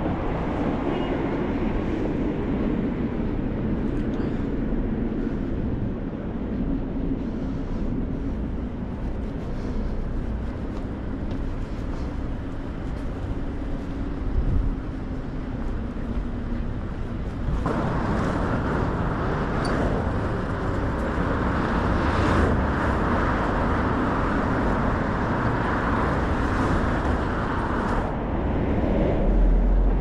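Steady road traffic on a busy multi-lane city street, heard from the pavement, with a low engine drone. About 18 seconds in, a louder, hissier steady noise starts suddenly and stops about ten seconds later.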